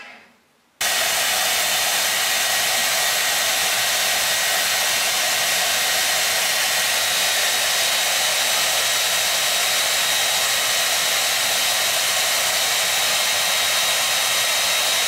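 Handheld hair dryer running steadily: an even rushing blow with a faint high motor whine on top. It cuts in abruptly about a second in.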